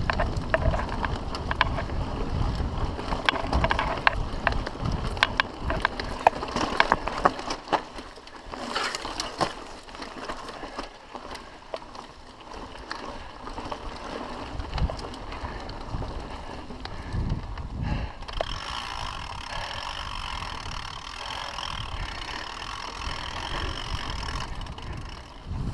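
Mountain bike rolling down a dirt singletrack, its frame and parts rattling and clicking sharply over bumps for the first several seconds. The ride then goes quieter and smoother, with a steady high hiss over the last third.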